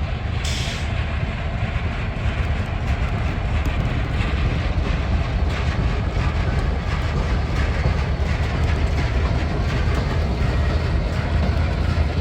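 Train rolling past on the tracks: a steady low rumble, with wheels clicking over rail joints.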